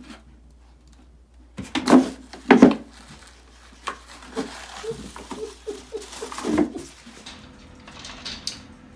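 A cat rummaging inside a small plastic wastebasket: two loud knocks of the bin about two seconds in, then a run of lighter scrapes and taps.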